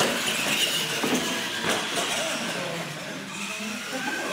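Radio-controlled monster truck's electric motor and gears whining as it races down the track, over the steady noise of a large hall.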